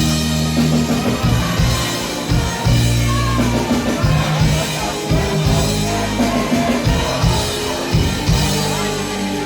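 Live band playing an instrumental intro with drum kit, bass and keyboards, in the loud, echoing sound of a hall.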